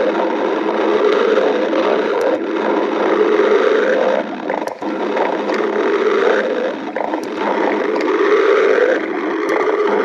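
Stomach growling: a loud, continuous rumbling gurgle that swells and eases every couple of seconds, with a brief lull about halfway through.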